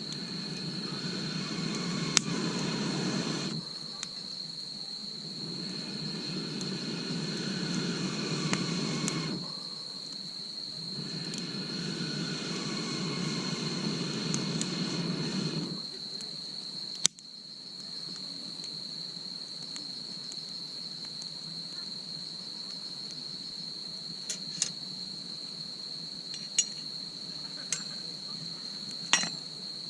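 Insects chirring in one steady high tone. In the first half, three rushes of low noise each last a few seconds, and a few sharp clicks come near the end.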